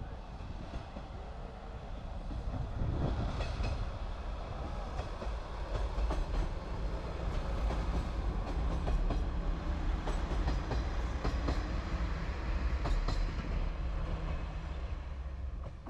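The 'Aru Ressha' diesel railcar train crossing a railway bridge, its wheels clacking over rail joints with a heavy rumble. It builds up a couple of seconds in, stays loud, then drops away near the end.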